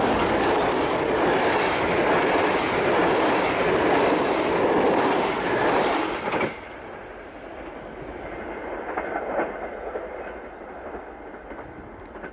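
Intercity passenger coaches rolling past at speed, their wheels running on the rails with a loud, steady rushing noise. The noise drops off sharply about six and a half seconds in, leaving only a much fainter sound.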